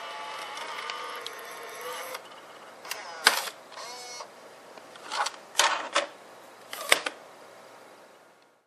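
Sony EV-C8u Video8 cassette deck ejecting a tape: its motor whirs steadily for about two seconds as the mechanism unloads, then the cassette lid pops up, followed by several sharp plastic clicks and clacks as the cassette and lid are handled.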